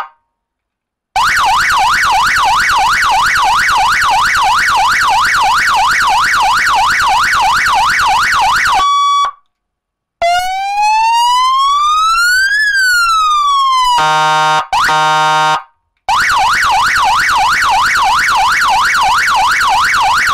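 Cheap 100-watt seven-tone electronic vehicle siren sounding loudly through its horn speaker and switching between tones with short silences in between. First comes a fast warbling yelp for about seven seconds, ending on a brief steady note. Then one slow wail rising and falling, two short horn-like blasts, and the fast yelp again near the end.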